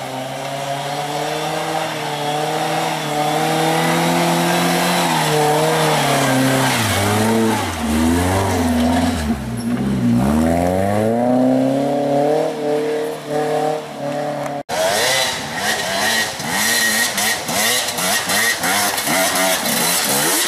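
Suzuki Vitara off-roader's engine labouring up a muddy trail, steady at first, then revving down and up several times as it works through ruts. About fifteen seconds in, the sound cuts to an enduro dirt bike's engine revving hard and fast on a climb.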